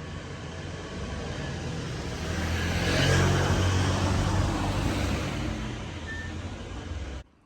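Motor vehicle engine and road noise, swelling to a peak about three seconds in and then easing off, before cutting off abruptly near the end.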